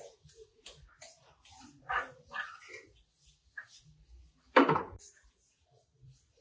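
A dog barking a few times, the loudest bark about four and a half seconds in.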